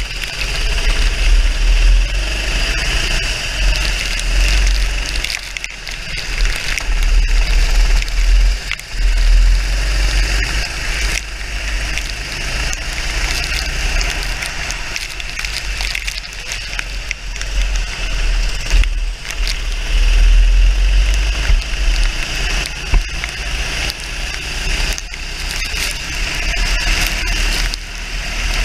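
Onboard audio from a kart racing on a wet track: its engine running hard under heavy wind buffeting on the microphone, with water spray crackling against the camera.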